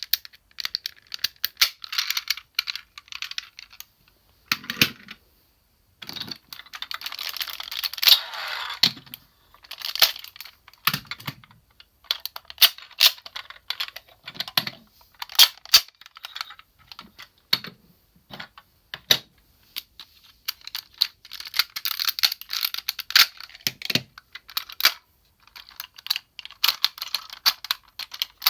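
Plastic parts of a DX Sirender robot toy being handled: a dense run of small clicks, rattles and scrapes, with an occasional dull knock.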